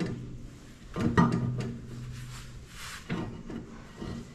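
Rear brake drum of a Ferguson TEF20 being worked back onto its hub: metal clunks and scrapes, the loudest knock about a second in leaving the drum ringing with a low hum for about two seconds, and another knock near the end.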